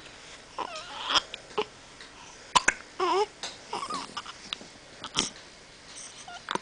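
Repeated sharp hiccups, about half a dozen spread unevenly, with brief wavering squeaky sounds in between.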